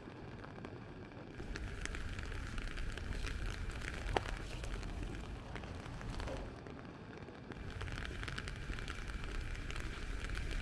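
Rain pattering as a dense crackle of small drop ticks over a low rumble. The patter thins briefly near the start and again a little past the middle, and there is one sharper tick about four seconds in.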